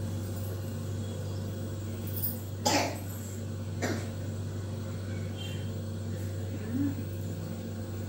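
Steady low hum of a running refrigerator, with a short harsh noise about three seconds in and a weaker one about a second later.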